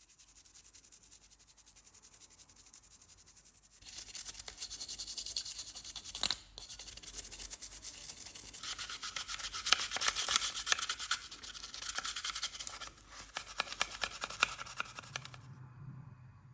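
Rapid rubbing and scraping strokes on a small model-car part, starting about four seconds in. They pause briefly twice and stop shortly before the end.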